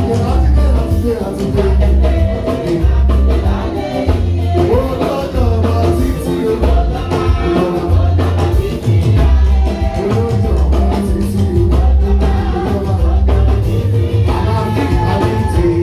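Music with singing over a strong, repeating bass line and a steady beat.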